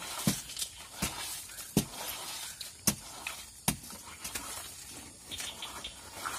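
Hydraulic bottle jack being pumped under a stuck truck's wheel: a sharp clack with a dull knock at each stroke of the handle, about one a second, over a steady background hiss.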